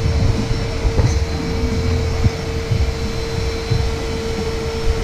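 Steady low rumble of a moving vehicle, with a constant hum and uneven low buffeting.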